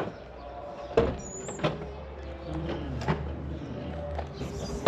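A few sharp clunks and knocks from a van door and a plastic cool box being lifted out, the loudest about a second in and right at the end, with kittens mewing faintly in between.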